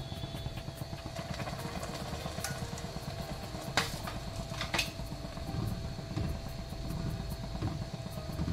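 A steady low rumble, with two sharp metallic clinks about four and five seconds in: a steel bowl knocking against a wire-mesh strainer as jaggery syrup is poured through it into a pot of milk.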